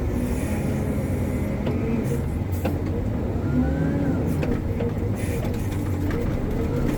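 Hitachi 370 wheel loader's diesel engine running steadily under load, with a whine that wavers in pitch over it and a few light clicks.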